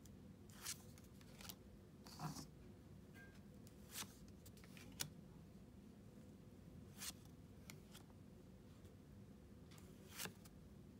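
Pokémon trading cards sliding against one another as they are flipped through one at a time: about eight short, soft swishes, one every one to three seconds, over a faint steady hum.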